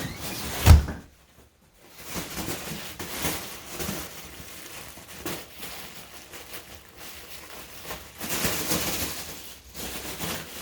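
A small dog tearing and scratching at a package, with irregular rustling and scraping of the packaging and a loud thump about a second in.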